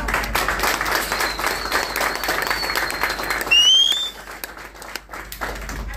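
A small audience applauding, the clapping thinning out and dying away about two-thirds of the way through. A thin high tone runs through the middle of the applause, and a short rising whistle comes near its end.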